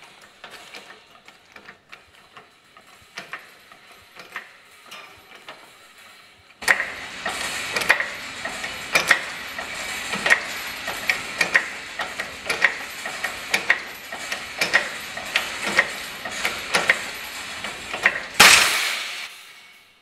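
Hydraulic jack on a wire-strain test rig, loading a 2.5 mm high-tensile fencing wire. There are faint clicks at first, then a louder run of irregular mechanical clicks and creaks, about two a second, over a steady rasp. Near the end comes a loud sharp burst as the wire breaks.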